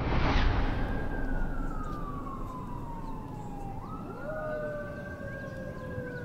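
A whoosh sweeps in at the start, then siren wails glide slowly down in pitch, jump back up about four seconds in and start falling again, over a steady low rumble.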